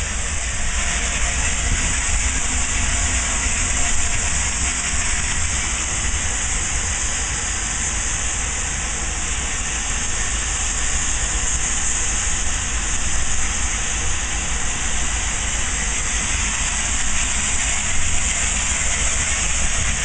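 Steady hiss of steam from Santa Fe 3751, a 4-8-4 steam locomotive, heard from inside its cab, over a low rumble.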